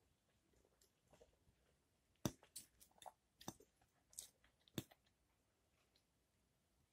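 A metal fork clinking and scraping against a plate as fried potatoes are picked up: a cluster of sharp clicks between about two and five seconds in, the first the loudest.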